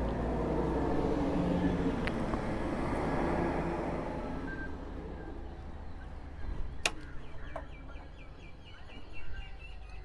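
A vehicle engine running steadily and fading away over the first few seconds, then a sharp click about seven seconds in, followed by a bird calling in a rapid series of high chirps.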